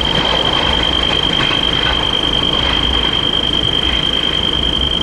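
Railroad crossing warning signal sounding one steady, high-pitched electronic tone while the crossing's red lights flash, over a steady background noise.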